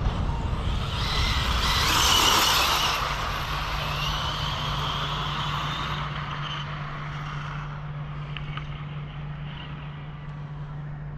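Brushless electric RC car (Arrma Typhon on 6S) speeding past with a high motor whine and tyre rush that peaks about two seconds in and then slowly fades away. A steady low hum runs under it from about four seconds in.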